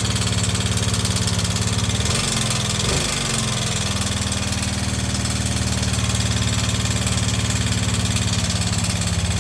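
Yamaha Mio i 125 scooter's single-cylinder engine idling with a loud metallic knocking and clanking rattle. The revs rise briefly twice, about two and three seconds in. The rattle is a fault that appeared suddenly after earlier repairs; its source is not yet known.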